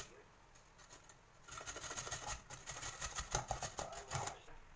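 Carrot being grated on a stainless steel box grater: a quick run of rasping scrapes starts about a second and a half in and stops shortly before the end.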